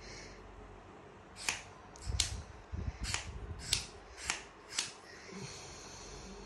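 Six sharp clicks, a little over half a second apart, from the Ray Bow RB1122 Max flashlight being handled and worked, with a faint low rumble between them.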